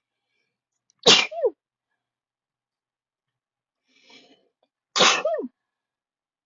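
A person sneezing twice, about four seconds apart. Each sneeze is a sudden, loud burst lasting about half a second that ends in a voiced tail falling in pitch. The sneezes are part of a sneezing fit.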